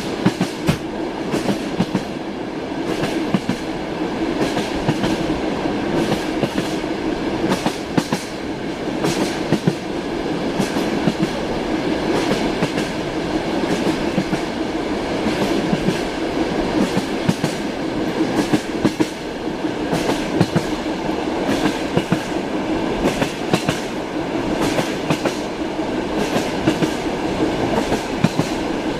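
Train wheels knocking over rail joints, heard inside a passenger carriage: a steady rumble with frequent, irregular clicks of clickety-clack.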